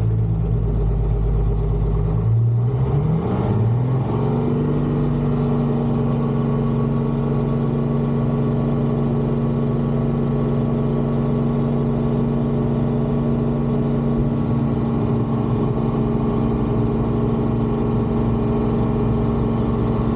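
Diesel engine running under steady load; about two and a half seconds in, it revs up over a second or so, then holds at a steady higher speed.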